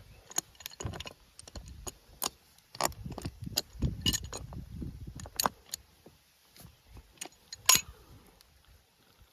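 Irregular sharp clicks, taps and clinks of hard plastic pipe fittings and tools being handled, with rumbling handling noise in the middle and one loud knock near the end.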